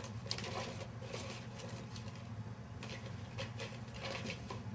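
A cat pawing and scratching at the slot of a round mouse-tail cat toy on carpet: several short scratchy rustles in quick bouts, over a steady low hum.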